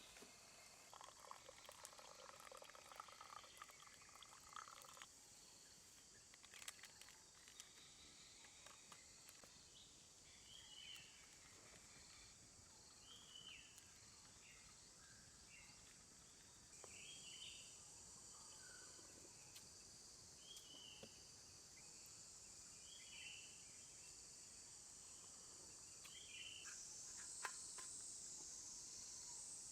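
Faint forest insects, crickets or similar, keeping up a steady high-pitched trill that grows louder about halfway through. From about ten seconds in, a short chirping call repeats roughly every two seconds. A brief buzz sounds near the start.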